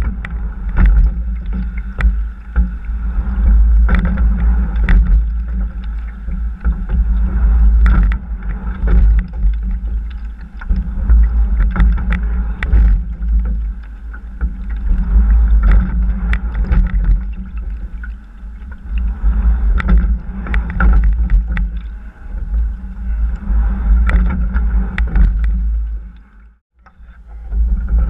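Rowing shell moving through the water under a double scull: water rushing along the hull, heavy wind buffeting on the microphone, and sharp knocks that come again and again with the strokes. The sound drops out briefly near the end.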